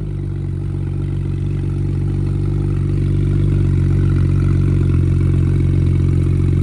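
Car engine idling steadily at an even low pitch, gradually getting louder.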